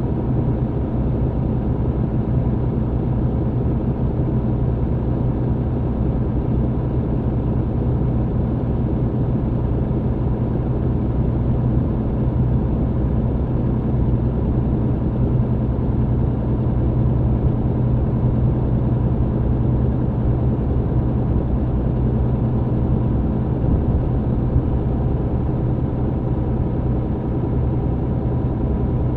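MAN TGX truck's diesel engine running at a steady, unchanging pitch, with road noise, heard from inside the cab.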